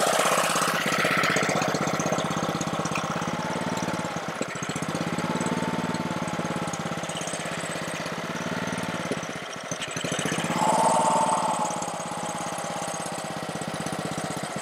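Honda-powered pressure washer's small engine running on choke. Its speed rises and falls every few seconds, with brief dips about four and nine seconds in: the unsteady running of a carburetor problem.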